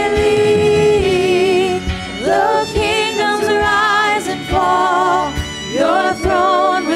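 Live church worship band playing a contemporary worship song, a woman singing the melody with a wide vibrato in long held phrases over the band and a steady beat.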